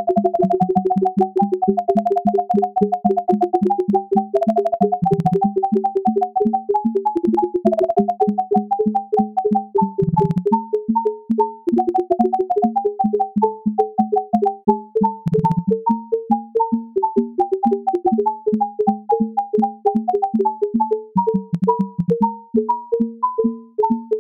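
Desktop 3D printer running a print, its stepper motors sounding as a rapid string of short pitched whines that jump up and down in pitch as the print head darts back and forth.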